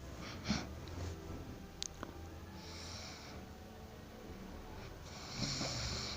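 A person snoring in their sleep: two noisy, rasping snore breaths about two and a half seconds apart, over a low steady hum, with a few small clicks early on.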